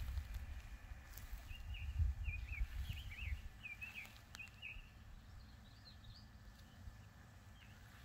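A songbird sings a quick run of short, warbling notes for about three seconds, over a low rumble. A fainter, higher bird call follows shortly after.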